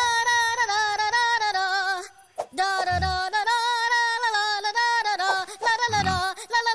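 Cartoon elephant's trunk singing wordlessly in a high, wavering voice, long held notes with quick wobbles in pitch, breaking off briefly about two seconds in. Two short low thuds come about three and six seconds in.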